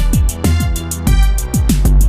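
Electronic dance music with a fast drum-machine beat, a pulsing high part about eight times a second, and deep bass with falling pitch sweeps.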